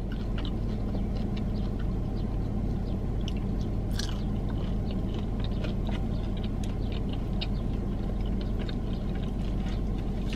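Close-up chewing and biting of crispy fried chicken, with small crunches and mouth clicks scattered throughout, over a steady low hum.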